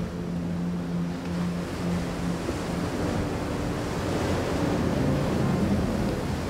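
Steady rushing of falling water from a waterfall, a little louder in the second half, over low held music notes that fade out partway through.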